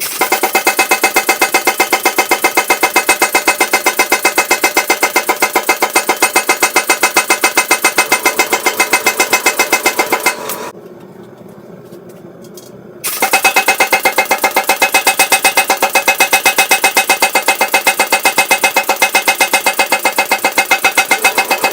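Power hammer striking in rapid, even blows as it draws out a forged steel knife blank, in two long runs with a pause of a couple of seconds near the middle.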